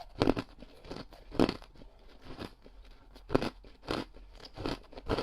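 Ring-shaped ice being bitten and chewed close to the microphone, with crisp crunches coming about once a second.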